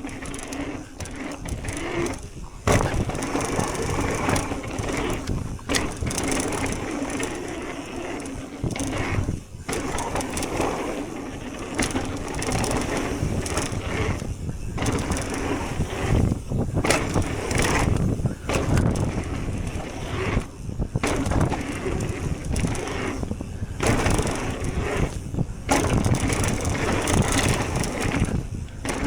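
Propain electric mountain bike running fast down a dirt trail: continuous knobby-tyre roar over dirt and roots with the bike rattling, broken by many short drops in the noise.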